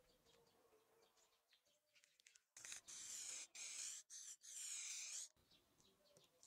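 Aerosol spray-paint can hissing in about four short bursts, from about two and a half seconds in to just past five seconds. The white paint is being sprayed over a paper template to mark a knife profile on a steel blank.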